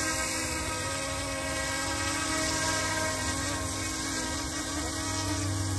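Coast Guard helicopter running close by: a steady rush of rotor and engine noise with a whine of several steady tones on top.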